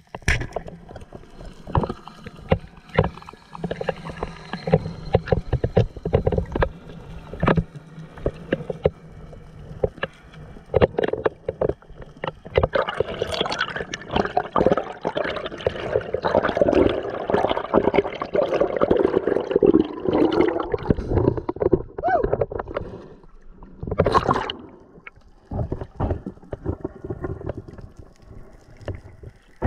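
Underwater sound of a freediving spearfisher: water sloshing and rushing against the camera housing, broken by many irregular knocks and clicks. A louder stretch of churning water runs through the middle, near the surface, and a single sharp burst comes near the end.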